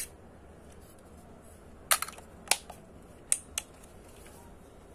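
Olympus XA-2's plastic body giving a handful of sharp clicks about two seconds in and over the next second and a half as it is handled: its back door is snapped shut and its controls are worked.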